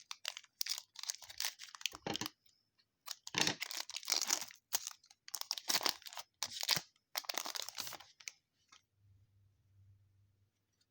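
A 2020 Donruss Optic baseball card pack wrapper being torn open and crinkled, in a run of rustling, tearing bursts over about eight seconds.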